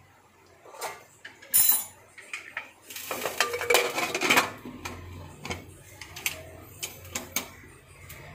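Pressure cooker lid being put on and locked: metal clanks and clicks, one loud clank about a second and a half in, a longer clatter around three to four seconds in, then a few lighter clicks.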